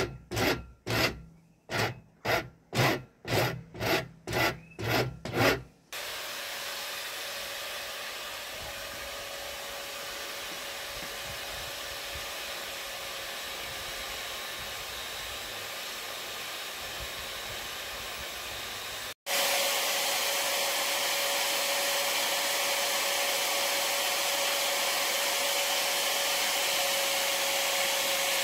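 Back-and-forth rasping strokes of a hand tool on the end of a wooden staff, about two and a half a second, stopping about six seconds in. A Sealey power drill fitted with a sanding disc then runs steadily with a constant whine. After a sudden break about nineteen seconds in it comes back louder.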